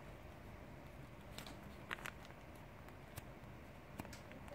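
Sheet of white paper being folded and creased by hand: a few brief, soft crackles and rustles over a faint steady background.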